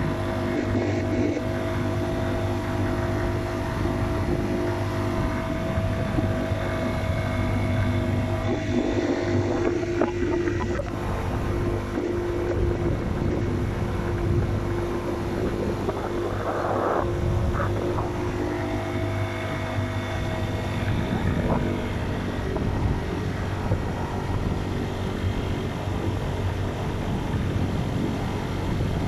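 Motocross bike engine running at steady, even revs while riding, with wind buffeting the microphone.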